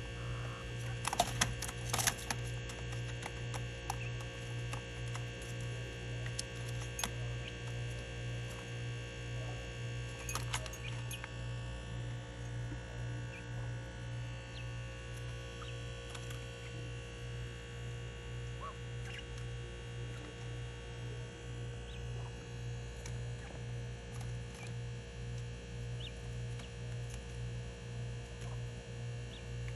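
A steady low electrical hum that pulses evenly, with a few sharp clicks about a second or two in and again near ten seconds.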